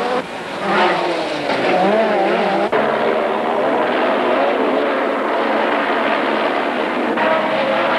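Group B rally car engine at high revs on a stage, its pitch rising and falling with throttle and gear changes, with two abrupt breaks in the sound near the start and about two and a half seconds in.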